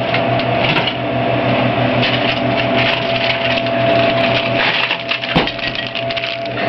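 Vending machine running with a steady hum and a continuous mechanical whirring rattle, with a single sharp thump about five seconds in.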